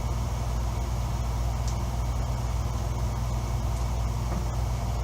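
Steady low hum of background noise, even in level throughout, with a faint light tick or two.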